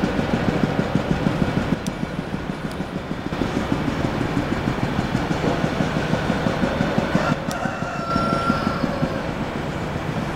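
Steady low rumble of a large vehicle passing close by, with a short high-pitched squeal about eight seconds in.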